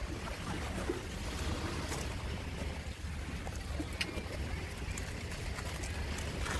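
Steady wind rumble on the microphone outdoors, with a few light clicks as plates and food containers are handled.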